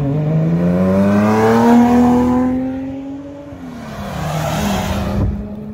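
Subaru boxer engines accelerating past one after the other: a blue Impreza RS with a swapped six-cylinder engine and a white STI with its turbo four. The engine note climbs for about three seconds, drops, climbs again, then holds steady near the end.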